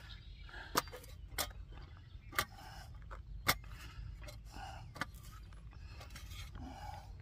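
A handful of sharp, irregular clicks and taps, about five in all, as deer salami in its plastic wrapper is handled and cut on a tabletop, over a low steady rumble.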